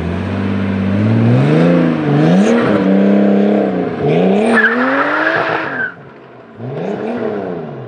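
Nissan Skyline R34's straight-six engine revving hard as the car pulls away, its pitch climbing and dropping several times, with a brief tyre squeal about five seconds in.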